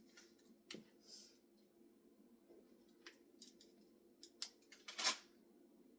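Scattered light clicks and taps of food and utensils being handled while coating fish, with a sharper knock about five seconds in, over a faint steady hum.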